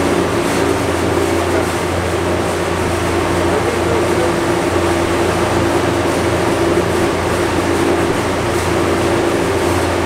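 BMW B58 turbocharged 3.0-litre straight-six with a catless downpipe, running at a steady engine speed on the dyno with no rev change. It makes a loud, even drone.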